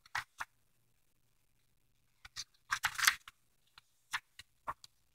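Paper pages of a workbook being flipped and handled: a series of short, dry rustles, with the loudest, densest cluster about two to three seconds in.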